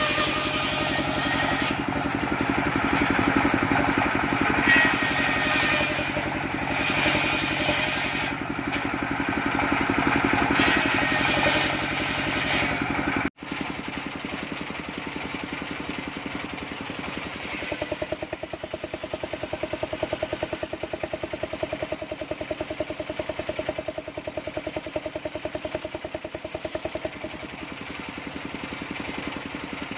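Engine-driven circular saw cutting sengon wood: the engine runs steadily under a rasping cutting noise. About 13 s in, the sound breaks off abruptly and comes back quieter, with a steady whine from about 18 to 27 s.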